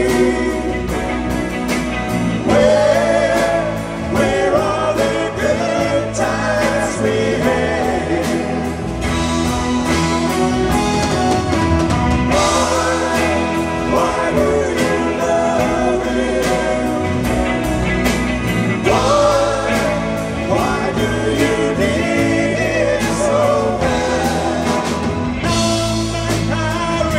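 A live pop band playing a song, with singing over guitars and drums.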